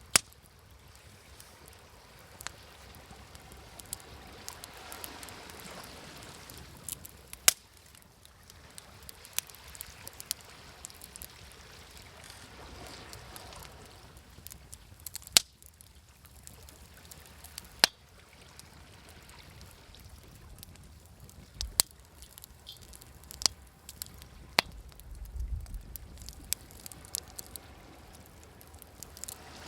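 Wood fire crackling, with sharp pops every few seconds, over the soft wash of waves that swells and falls away.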